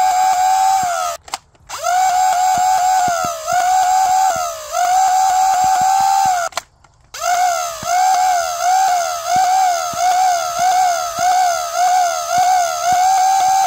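Foam-dart flywheel blaster (a 3D-printed mini Gryphon) firing full auto, its flywheel motors whining with the pitch dipping and recovering at each shot, about two shots a second, with faint clicks of its N20-motor pusher (not a solenoid). The firing stops twice, briefly, before starting again.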